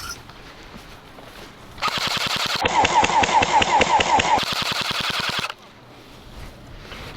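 Airsoft gun firing on full auto: one continuous burst of rapid, evenly spaced shots lasting about three and a half seconds, starting about two seconds in.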